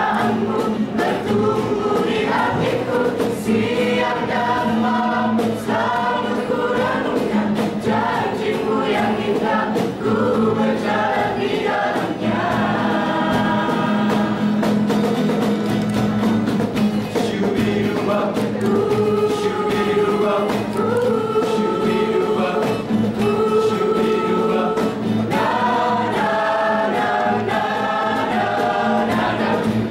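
Mixed vocal group of young men and women singing a church song together, the voices continuous and steady in loudness.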